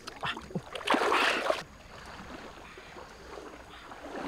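Flood water splashing and sloshing as a person wades through it pushing a large metal basin, with one loud splash about a second in, then a quieter steady wash of water.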